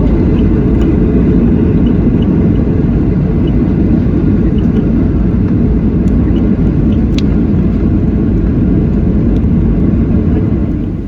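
Airliner cabin noise: a loud, steady low rumble of the plane in flight, such as during takeoff or landing, fading out near the end.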